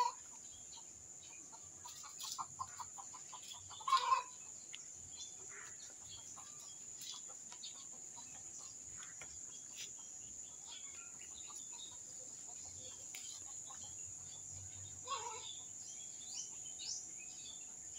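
Domestic chickens clucking: a loud cluck at the start, a quick run of short clucks about two seconds in, another loud cluck at about four seconds and one more near fifteen seconds. Small bird chirps near the end, over a steady high-pitched whine.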